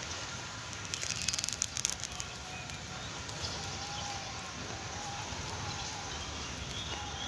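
Footsteps crunching through dry leaf litter, with a quick run of crackles from dry leaves and twigs underfoot about a second in.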